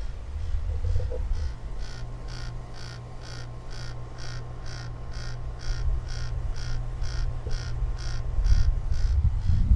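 Air-conditioning unit running with a steady low hum and a strange, regular squawking chirp repeating about two and a half to three times a second. Wind rumbles on the microphone near the end.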